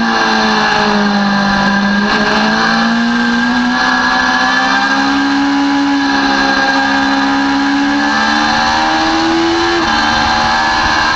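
Sport motorcycle engine running hard at high revs in third gear: the pitch dips early on, then climbs steadily as the bike accelerates, and drops sharply near the end as the throttle closes. Wind rushes over the bike-mounted camera throughout.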